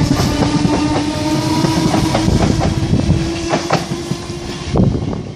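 Merseyrail Class 508 electric multiple unit pulling away from the platform. Its motor whine rises slowly as it accelerates, and its wheels click over the rail joints.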